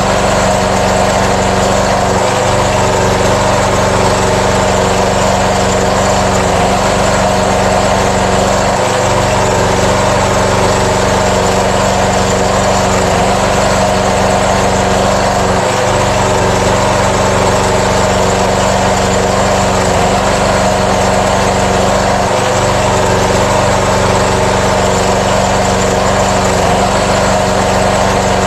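5 kVA air-cooled diesel generator running at a steady, constant speed, loud and unchanging.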